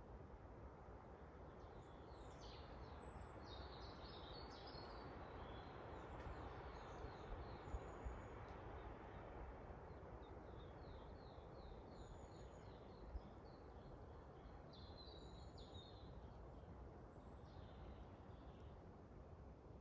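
Quiet forest ambience: wind making a steady rushing hiss that swells through the middle, with several small birds chirping and calling high above it, including a quick run of repeated chirps about halfway through.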